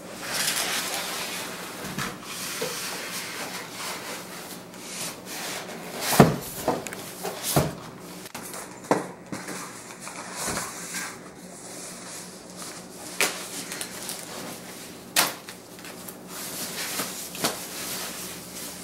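Plastic packaging bag rustling and crinkling as an electronic keyboard is unwrapped, with foam end caps pulled off and set down. Several sharp knocks of the keyboard and packing being handled break through the rustle, the loudest about six seconds in.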